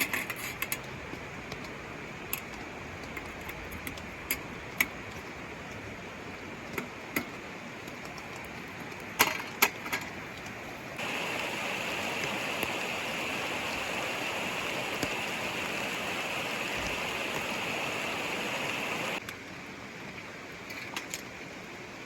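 Steady rain and stream noise with scattered small clicks and taps. About halfway through, a louder steady hiss starts abruptly, runs for about eight seconds and cuts off suddenly.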